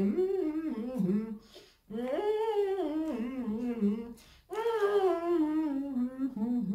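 A woman humming through closed lips with her mouth full of boiled egg: three long, wavering phrases, the last one sliding down in pitch.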